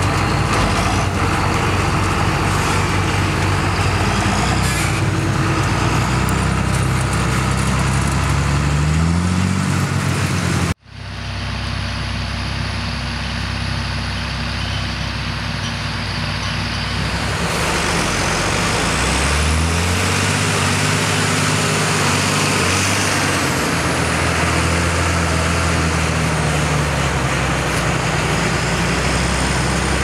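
John Deere 8100 tractor's six-cylinder diesel engine running steadily under load, rising in pitch just before an abrupt cut about eleven seconds in. After the cut the engine sound is thinner and hissier for several seconds, then the engine note returns and rises again near the twenty-second mark.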